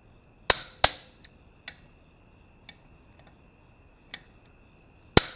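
Click-type torque wrench breaking over with sharp clicks as the wheel bolts reach their set torque of 60 newton metres: two loud clicks about half a second in, a few light ticks, then two more loud clicks near the end.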